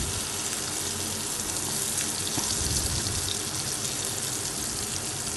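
Masala-coated raw plantain slices shallow-frying in oil in a pan, a steady sizzle.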